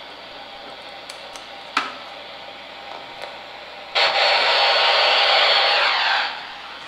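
A sharp click, then about four seconds in a loud, steady buzzing hiss cuts in abruptly and fades out after about two seconds: the electromagnetic interference from a USB power adapter, picked up and played through a detector's speaker.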